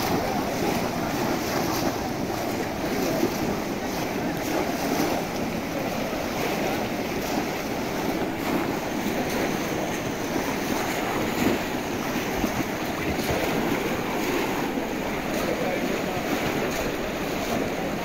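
Steady hubbub of a large crowd wading in shallow muddy water: many voices blending with constant splashing as conical bamboo basket traps are plunged into the water.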